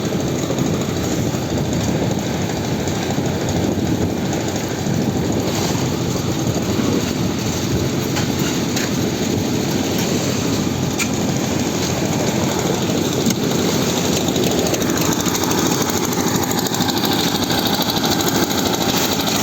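Concrete mixer machine with a ladder lift, its engine running steadily with a dense mechanical noise.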